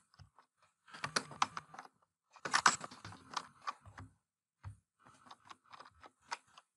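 Fairly quiet typing on a computer keyboard: three or four runs of keystrokes with short pauses between them, as a password is typed in.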